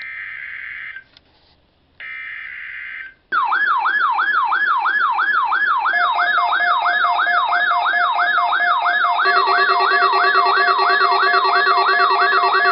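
NOAA Weather Radio SAME alert header: two buzzy digital data bursts about a second long each. About three seconds in, weather-alert radio receivers set off by the test start their alarms: a loud siren-like wail sweeping up and down about two and a half times a second. Steady beeping alarm tones from further receivers join it about six and nine seconds in.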